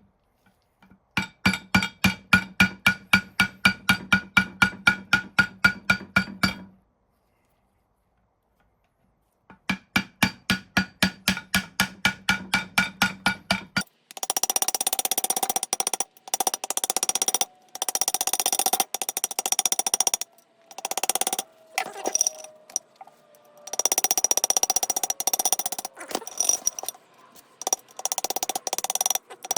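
Rapid, even hammer blows on a ringing metal vise part, about five strikes a second, in two runs. Then a harsher, noisier sound of metal being worked, chopped off abruptly several times.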